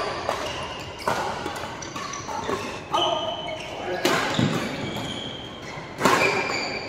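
Badminton rally: rackets striking a shuttlecock, four sharp hits spaced one to two seconds apart, ringing in a large hall, with short high squeaks between the hits.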